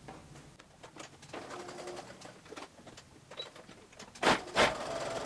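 Domestic sewing machine stitching a short seam in a folded fabric strip, a light mechanical whirr and clicking, with two loud knocks a little past four seconds in.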